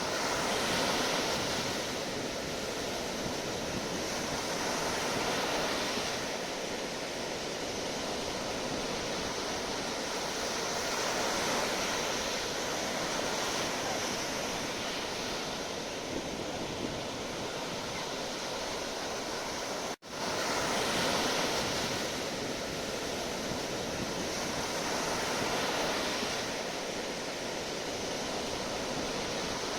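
Sea waves breaking and washing in a steady surf, swelling and easing about every five seconds. About two-thirds of the way through, the sound drops out for a split second and comes straight back.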